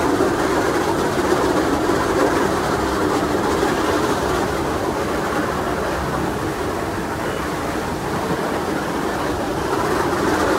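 Steady rumble and rush of the paddle steamer La Suisse under way: paddle wheels and engine churning the water, with water rushing along the hull.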